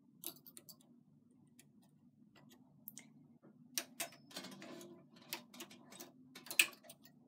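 Irregular light clicks of metal three-prong transfer tools catching on the knitting machine's needles as stitches are lifted off for a cable cross, with the sharpest click near the end.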